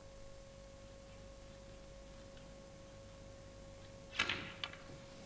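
Snooker cue striking the cue ball about four seconds in, then a second sharp click half a second later as the cue ball hits an object ball. Before that there is only a faint steady hum.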